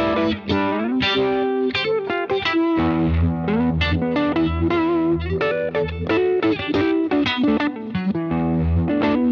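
Electric guitar, a Fender American Telecaster, played through an EarthQuaker Devices The Depths analog optical vibe pedal set for a big, drippy phase, into a UA Dream 65 amp simulation with added room reverb and echo. A continuous run of picked notes and chords, with lower bass notes joining in about three seconds in.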